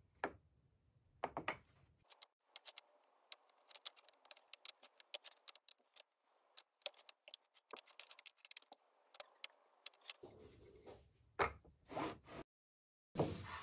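Small cut plywood blocks clicking against one another and on a plywood bench top as they are moved and set into rows. It is a quick scatter of light wooden ticks, with a few louder knocks near the end.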